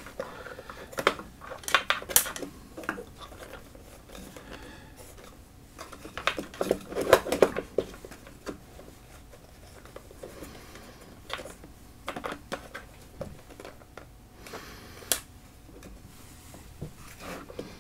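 Pedalboard parts being handled and fitted by hand: irregular clicks, taps and light clattering of hard pieces, cables and pedals, with busier bursts about two seconds in and again around seven seconds.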